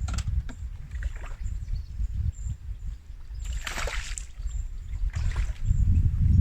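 Wind rumbling on the microphone, with three short splashes of water at the bankside, about three and a half, five and six seconds in.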